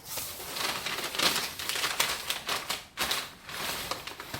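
Packing material rustling and crinkling as it is pulled about in a cardboard shipping box, a dense run of small crackles and clicks with a brief lull about three seconds in.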